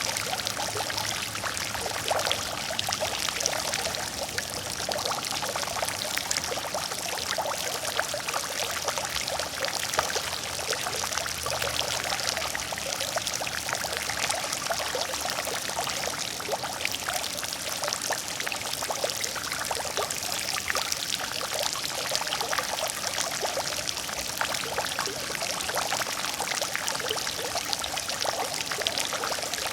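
Water fountain running: falling water splashing steadily into a pool, a continuous busy splatter with many small drips and splashes.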